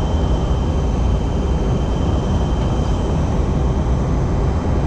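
Steady cabin noise of an airliner in flight on its descent, engine and airflow noise heavy in the low end, with a thin steady high whine.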